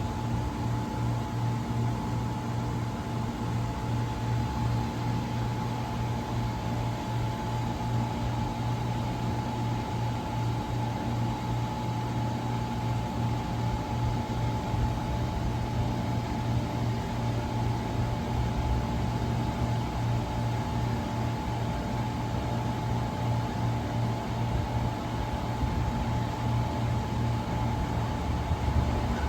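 Steady mechanical hum of a train standing at the station, holding a few fixed low and middle tones over a noise haze, with no change in pitch or level.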